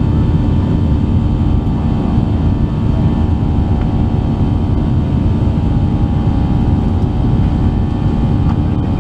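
Boeing 737-800's CFM56-7B turbofan engines running at climb power after takeoff, heard inside the cabin: a steady deep rumble with a few steady whining tones over it.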